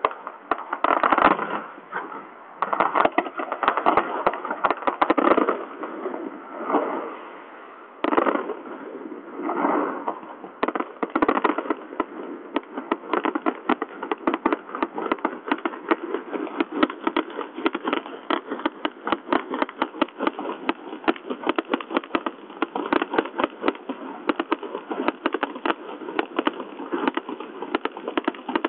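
Fireworks display: a series of loud bangs from bursting shells, then, about eleven seconds in, a dense rapid crackling of many small pops that keeps going.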